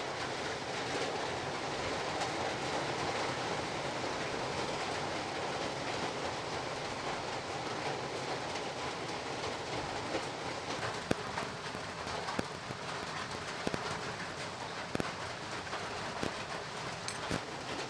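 Chilli-red sardine curry gravy boiling in a pan, a steady bubbling hiss. In the second half, a scattered series of small clicks and knocks comes in over the bubbling as the sardine pieces are put into the gravy.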